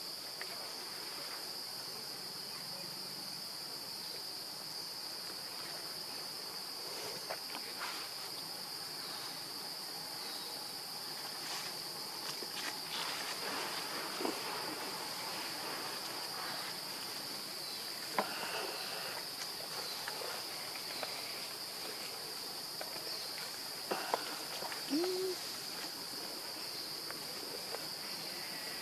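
Steady high-pitched insect drone of a forest insect chorus, with scattered light clicks and crackles of movement, and a brief low call a few seconds before the end.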